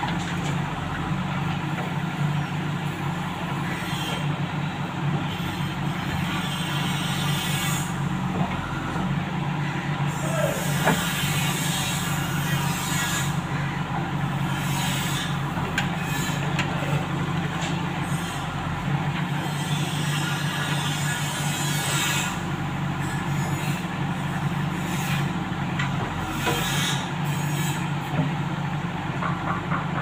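JCB backhoe loader's diesel engine running steadily under load while the backhoe digs soil and swings it over a tipper truck. Brief hissing noises come and go over the engine now and then.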